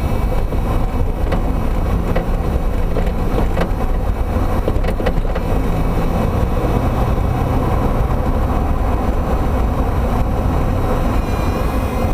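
Toyota MR2 Spyder on BC Racing BR-type coilovers, with a steady low rumble of the car throughout. A few faint knocks sound within it, about four times. This is the knocking clunk the owner is chasing in the coilover suspension.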